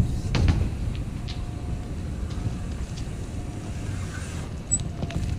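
Low steady rumble of wind on the microphone during a mountain-bike trials ride, with a few light clicks and knocks from the bike.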